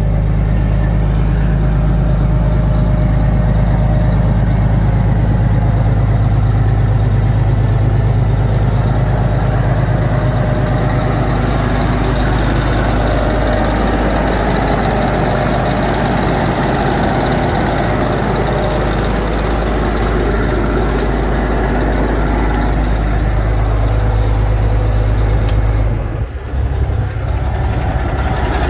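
Heavy truck diesel engine of a 2010 Kenworth T660 idling steadily. Near the end the sound briefly dips and a couple of sharp clicks are heard.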